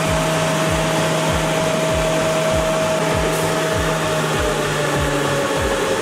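Woodworking frame-milling machine running steadily, with a motor whine over a low hum and a regular low thump about three times a second. The whine sinks slightly in pitch near the end.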